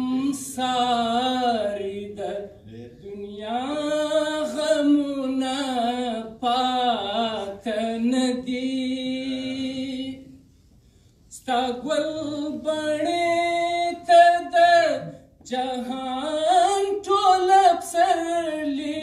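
A man singing unaccompanied, drawing out long melodic notes that glide up and down, in phrases of several seconds with about a second's pause near the middle.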